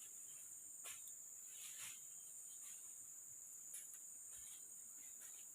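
Steady high-pitched chorus of crickets and other insects in tropical forest, with a few faint clicks about one, two and four seconds in.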